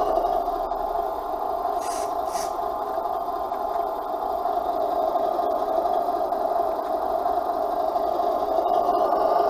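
Diesel engine idle sound from an RC truck's sound module, played through its small onboard speaker as a steady, narrow-sounding drone. Two short hisses come about two seconds in.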